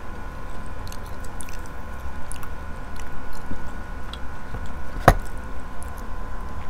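Close-miked grilled inasal chicken being pulled apart by hand: small moist crackles and clicks of skin and meat tearing, with one sharp click about five seconds in. A steady low hum runs underneath.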